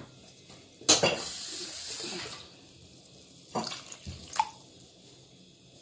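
A knock about a second in, then water running for about a second and a half, followed by a couple of light kitchenware clicks.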